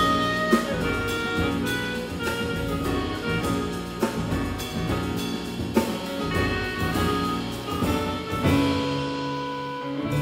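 Live small-group jazz: a clarinet plays the lead line over piano, bass and drum kit with cymbals. Near the end the band settles onto a long held chord as the cymbals fade.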